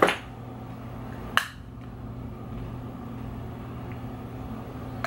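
A plastic blush compact gives one sharp click about a second and a half in as its lid is pried open without fingernails, over a steady low hum.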